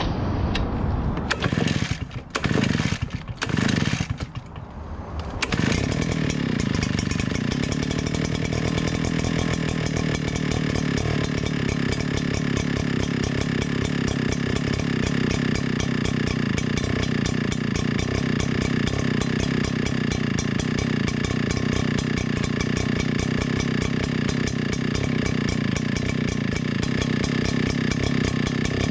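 Small petrol engine pull-started: several tugs on the recoil starter rope, then the engine catches about five seconds in and runs steadily at speed.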